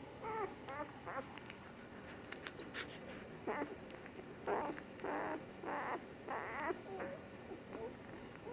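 Three-day-old puppies squeaking and whimpering in short high cries that bend up and down in pitch, with a run of four louder cries a little past halfway and a few soft clicks between.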